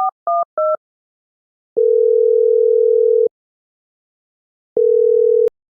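Telephone touch-tone keypad dialing three short two-tone beeps, then the ringback tone of the call ringing on the line: one long ring about two seconds in, and a second ring that is cut off near the end as the call is picked up.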